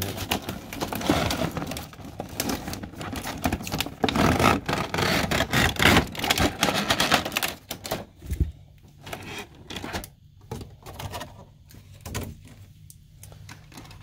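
Cardboard box and packaging being handled as it is opened and the contents slid out: dense rustling and scraping for about the first eight seconds. After that come sparser clicks and crinkles of a clear plastic blister cover being lifted off.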